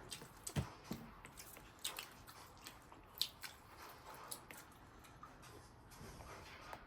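Close-miked chewing and biting of pork: soft, irregular wet clicks and small crunches, a few louder ones scattered through.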